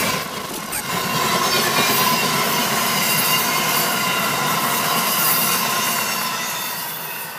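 Amtrak passenger train passing at speed: the steady rush of steel wheels on rail, with faint high tones ringing through it. The sound fades away near the end as the last car goes by.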